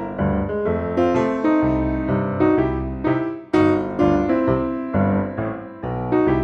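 Background piano music: a light melody of struck notes, with a brief pause about three and a half seconds in.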